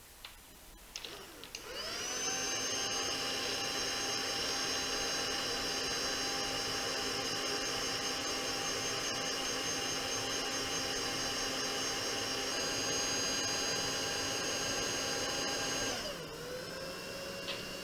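A small electric motor starts up about two seconds in and runs at a steady whine. Near the end it drops to a lower speed.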